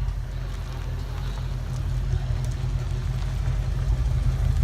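Ford Mustang engine idling with a steady, deep low rumble that grows a little louder toward the end.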